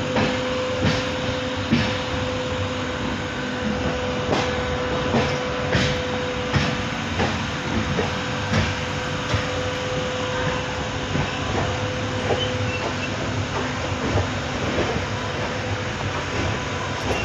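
Mumbai suburban local train running, with a steady rumble and sharp wheel clicks about once a second as it passes over rail joints. A steady hum runs with it and stops about two thirds of the way through.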